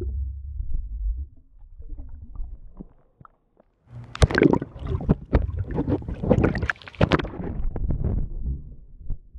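Muffled low rumble of pool water heard with the camera underwater, then about four seconds in loud splashing as the camera breaks the surface of the swimming pool, lasting about three seconds before settling back to a muffled rumble.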